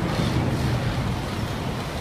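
Steady low rumble of fire apparatus engines running at the fire scene, under an even rushing hiss.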